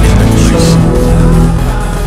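Loud music with sustained notes over a heavy bass, and a short hiss about half a second in.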